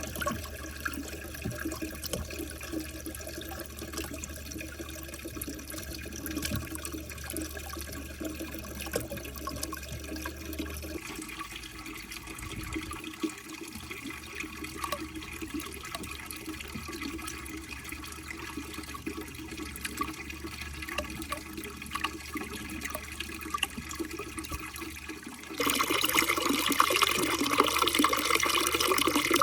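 Water running steadily through a water marble run, with scattered light clicks. The water gets suddenly louder about 26 seconds in.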